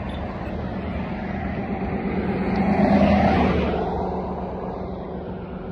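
Road traffic on a busy street: a passing car's engine and tyre noise swells to a peak about three seconds in, then fades away.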